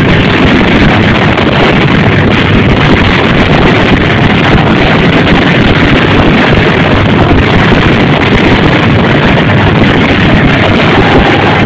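Fireworks finale: a continuous barrage of exploding shells and crackling stars, the bangs so rapid that they merge into one steady, loud din that overloads the microphone.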